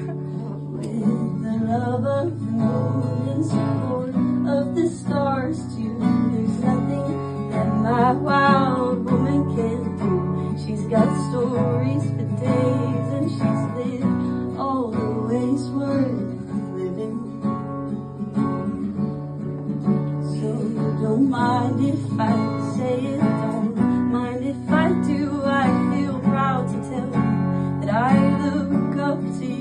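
Woman singing a slow song into a microphone while strumming an acoustic guitar, her voice wavering and gliding over steady chords.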